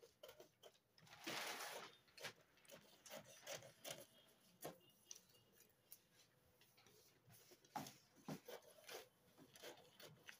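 Faint snips of scissors cutting through pattern paper, with the paper rustling and rubbing on a wooden table; a longer rustle about a second in, then scattered light clicks.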